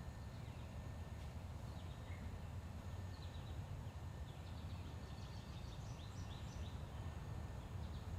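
A bird calling in quick runs of short, falling high notes, starting about three seconds in and repeating to the end, over a faint low outdoor rumble.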